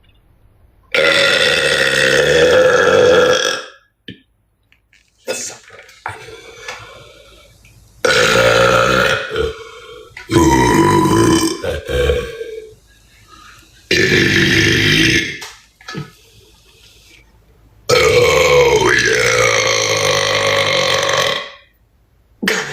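A woman's deliberate, loud belches in a series, each held for two to four seconds, with short pauses between them.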